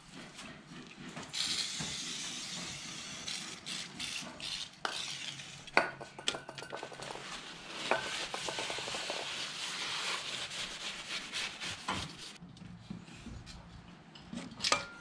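A clutch pressure plate being cleaned with aerosol cleaner and a rag: a long hiss that starts about a second in and cuts off abruptly near the end, with a few sharp metal clinks as the plate is handled.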